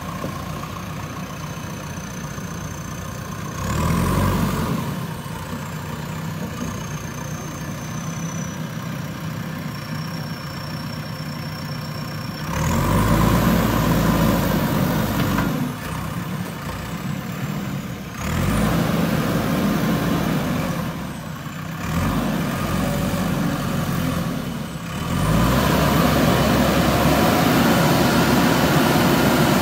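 JCB 3DX backhoe loader's diesel engine idling and rising to higher revs in several stretches as the backhoe arm is worked: briefly about four seconds in, then for longer from about twelve seconds on, and held high near the end. A thin high whine falls in pitch over the first half.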